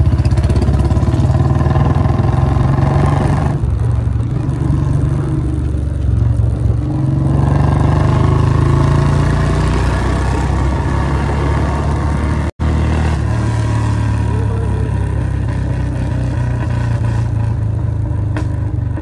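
Royal Enfield Bullet 350 Electra's single-cylinder engine running while the motorcycle is ridden, its pitch rising from about seven seconds in as it speeds up. The sound breaks off for an instant about two-thirds of the way through.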